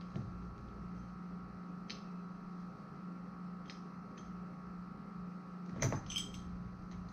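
Metal clinks and taps from tightening a threaded air-hose fitting: a few faint ticks, then a louder cluster of clinks about six seconds in, over a steady low hum.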